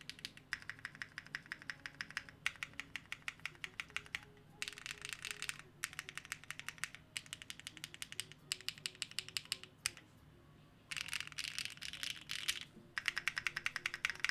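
Fast typing on a custom mechanical keyboard with HMX TT Red linear switches and KKB Red Alert keycaps: quick runs of keystrokes broken by short pauses, the longest about ten seconds in. Soft background music plays underneath.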